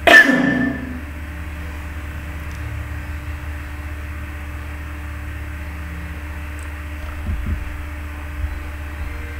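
A man coughs once, sharply. It is followed by a steady low electrical hum with faint hiss, and a few soft low bumps near the end.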